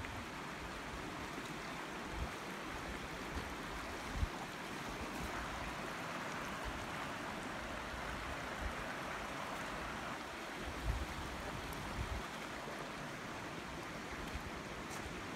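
Creek water rushing steadily over rocks, with a few brief low bumps on the microphone.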